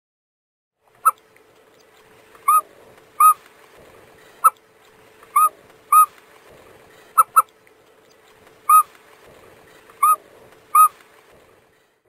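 Burchell's courser (Cursorius rufus) calling: about a dozen short, sharp notes at irregular intervals, some clipped like clicks, others slightly longer and arched in pitch.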